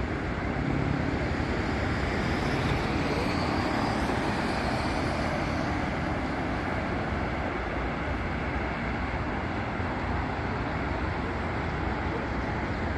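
Steady road traffic on a busy city avenue, a continuous rumble of car engines and tyres. A vehicle passes a little louder over the first few seconds.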